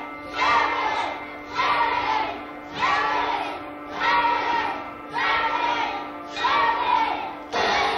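Music of massed voices swelling and fading in a regular pulse about once a second, over a steady low drone.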